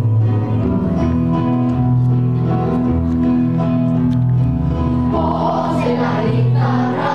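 A group of children singing together over an instrumental accompaniment of long held notes. The voices come in strongly about five seconds in.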